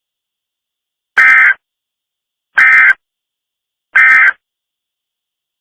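Emergency Alert System end-of-message data tones: three short bursts of the digital data code, each under half a second, about a second and a half apart, closing the alert.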